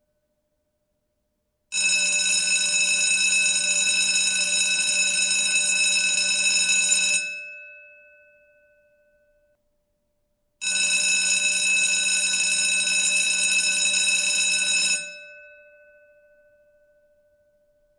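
School bell ringing in two long rings, the first about five and a half seconds and the second about four and a half, each stopping abruptly and leaving the bell's tone to fade over a couple of seconds.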